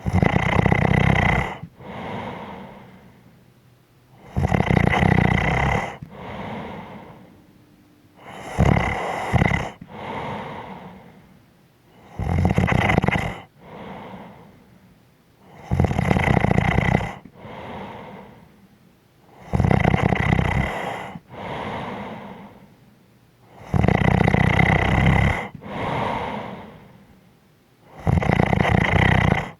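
A person snoring in a steady rhythm: a loud snore on each breath in, about every four seconds, eight in all, each followed by a softer breath out that fades away.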